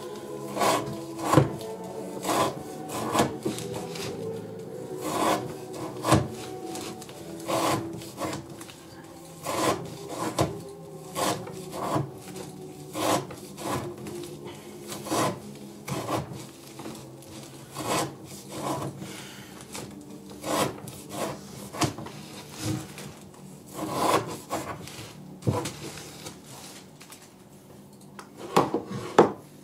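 Elmax-steel knife chopping through rope onto a wooden board in a rope-cutting edge-retention test, one cut about every second. Each cut is a short scraping thud.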